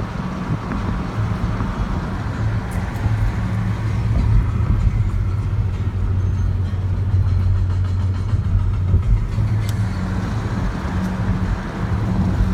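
A motor vehicle's engine running steadily, a low even hum with road or wind noise over it.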